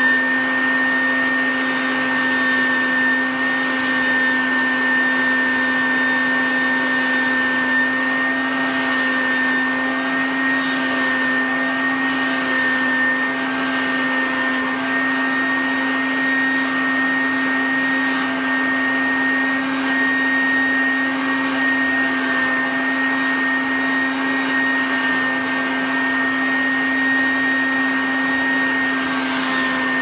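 1976 Hoover Junior U1012 upright vacuum cleaner with a metal fan, running steadily while drawing through its hose and attachment tool. It gives a constant motor hum with a high whine above it.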